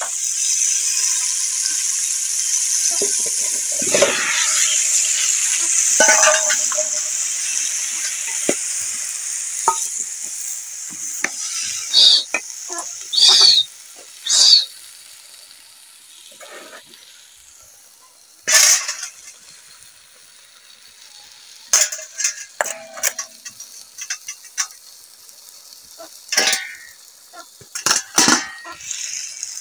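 A steady, high sizzling hiss that fades away over the first ten seconds or so. After it come scattered sharp clinks and knocks, which fit a knife and a metal bowl being handled.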